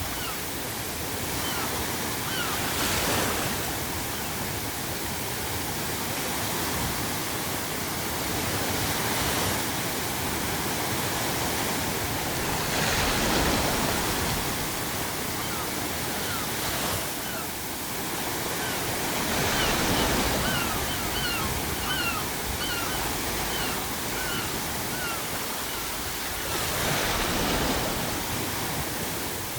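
Sea waves breaking in slow swells every few seconds over a steady pink-noise hiss, with seagulls giving short repeated calls, most thickly about two-thirds of the way through.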